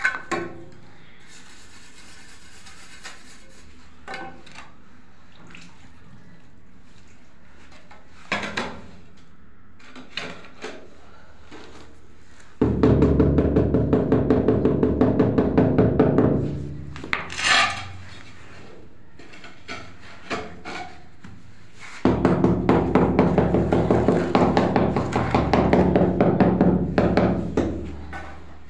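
Ceramic floor tiles being tapped down into a wet mortar bed: a few single knocks, then two long runs of rapid tapping that start suddenly and slow off, the tile ringing a little under the blows.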